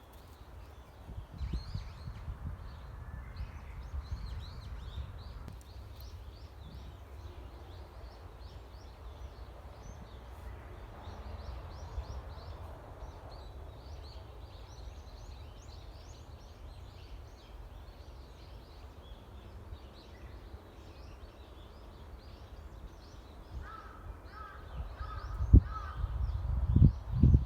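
Forest birdsong: many small birds chirp and twitter over a steady low rumble. Near the end a bird calls four times in quick succession, followed by a couple of sharp thumps.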